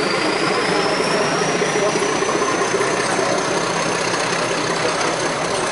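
The toy train's diesel locomotive running steadily as the train moves slowly along the platform, with a thin high whine that rises slowly in pitch.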